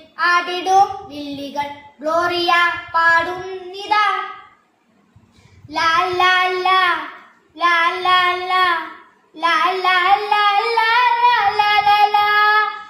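A child singing solo, in short phrases, with a brief pause about five seconds in and a longer held line near the end.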